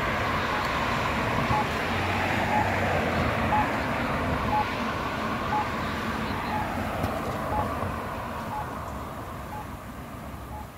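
Road traffic passing, loud for the first several seconds and fading away after about seven. Over it, a pedestrian crosswalk signal's short locator beep repeats about once a second.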